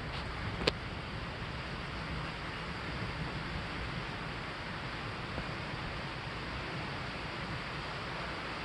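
Steady hiss of wind and rain as a thunderstorm front moves in, with one sharp click about two-thirds of a second in.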